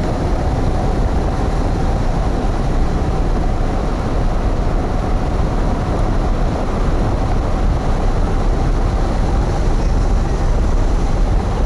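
Wind rushing over the microphone of a camera mounted on a hang glider's wing in flight. It is a loud, steady, deep rumble with a faint steady tone above it.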